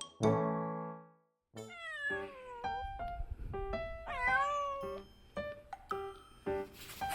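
A cat meowing several times in drawn-out, bending calls over light background music of short plucked notes. A chord rings out and stops about a second in, just before the meowing starts.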